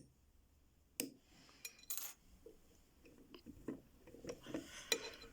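Scattered small metal clicks and clinks from handling a freshly picked Corbin padlock and the pick and tension tool, the sharpest about a second and two seconds in, then softer ticks.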